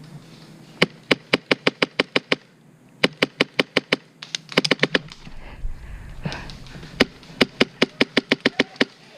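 Airsoft gun firing in four strings of rapid sharp cracks, about five shots a second, with a short pause between strings.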